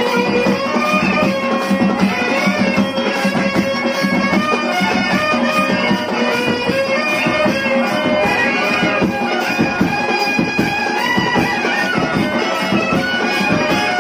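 Live traditional music for a kolatam stick dance: a reedy wind instrument holds a sustained melody over drumming. A steady beat of sharp clicks from the dancers' sticks striking runs underneath.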